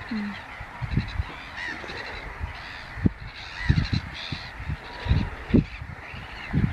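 Waterbird calls coming several times in short bouts, over irregular low rumbling thuds.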